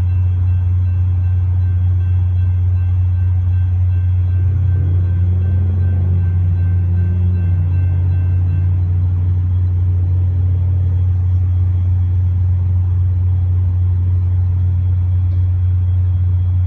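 Steady low vehicle rumble. From about five to ten seconds in, an engine note rises and then falls in pitch.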